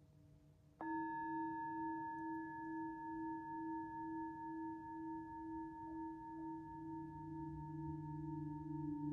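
A singing bowl struck once about a second in, then ringing on with a slow wavering pulse over a faint low steady drone.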